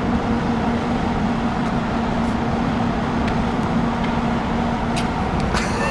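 Steady road traffic noise with a constant low engine hum, and a faint click about five seconds in.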